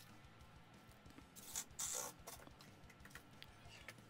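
Faint handling noises of hand tools: a few short scrapes and rustles, the loudest about one and a half to two seconds in, over a low steady hum.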